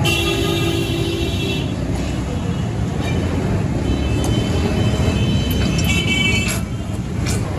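Busy street ambience: a steady low rumble of road traffic, with held high tones sounding twice and a couple of sharp clicks near the end.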